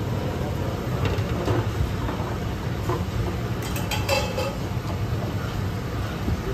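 Chicken pieces sizzling on a flat steel griddle over a steady low rumble, with a few metal clinks of a spoon against a steel bowl about four seconds in.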